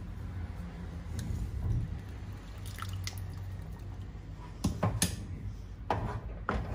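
Lemon juice dripping from a hand-held lemon squeezer into a pan of cooking star fruit jam. Several sharp clicks and knocks come about two-thirds of the way in, then a wooden spatula starts stirring the jam.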